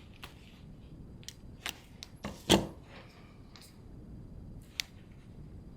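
Small hand tools snipping and clicking while working on car wiring, about half a dozen short sharp snaps spread out, the loudest about two and a half seconds in.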